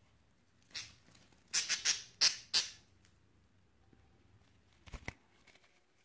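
A budgie being caught and held in the hand, giving several short harsh squawks in quick succession, followed a couple of seconds later by two sharp clicks.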